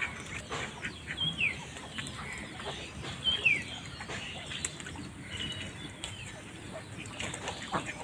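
A flock of domestic ducks calling now and then, with small clicks from their movement. Two short, high chirps that fall in pitch stand out, about a second in and midway.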